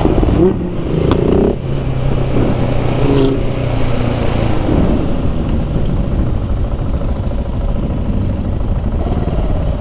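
KTM 690 SMC R single-cylinder supermoto engine running under way at city speed, with wind rushing over the microphone. The engine holds a steady note for about the first half, then blends into the road and wind noise.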